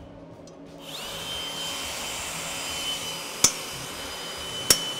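Power drill spinning up about a second in, then running with a steady whine as it drills a starter hole into a steel motorcycle frame tube. Two sharp clicks come near the end.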